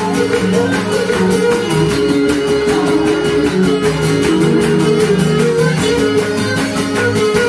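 Live instrumental Cretan folk music: a bowed Cretan lyra playing a melody over the plucked accompaniment of a large lute.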